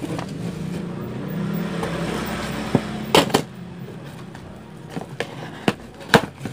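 A motor vehicle's engine running close by, fading out about three seconds in. Over it, a small cardboard box is handled on a workbench, with several sharp clicks and taps.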